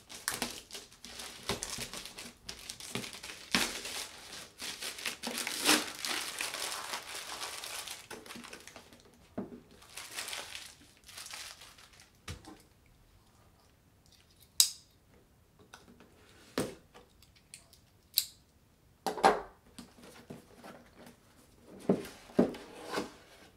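A plastic mailer bag crinkling as a cardboard box is pulled out of it, for the first several seconds and again briefly around ten seconds in. After that come a few scattered taps and knocks as the box is set down and handled.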